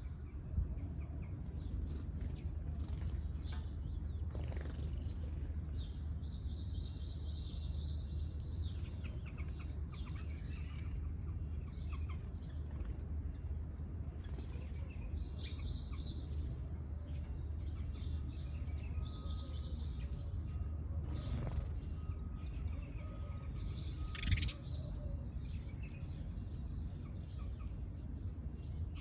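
Sparrows chirping in scattered clusters of short, high chirps, with one louder, sharper call about five seconds before the end, over a steady low rumble.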